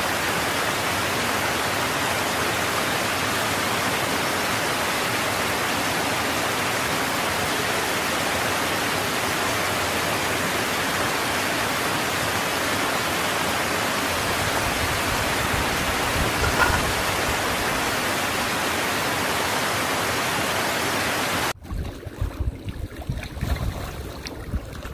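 Steady rush of running creek water. It cuts off suddenly near the end, giving way to gusts of wind buffeting the microphone.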